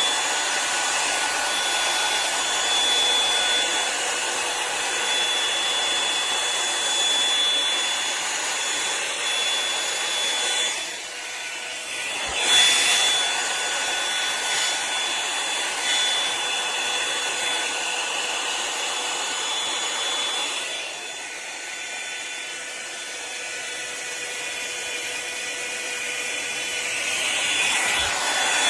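Revlon One-Step Volumizer hot-air brush running: a steady rush of air with a thin motor whine. The sound dips briefly about eleven seconds in, then comes back louder, and from about twenty-one seconds it runs softer.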